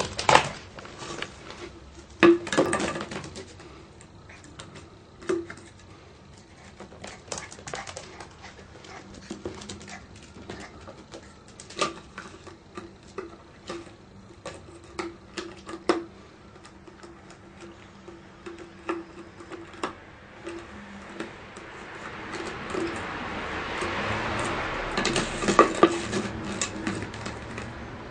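A Shiba Inu puppy playing with a plastic bottle on a hard balcony floor: irregular clattering knocks and clicks as it paws and noses at it. A broad rushing noise swells and fades near the end.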